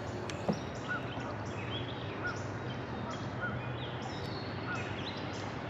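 Outdoor ambience with a bird calling over and over, a short chirp repeated about once every second or so, over a steady background hiss and low hum. A single soft knock about half a second in.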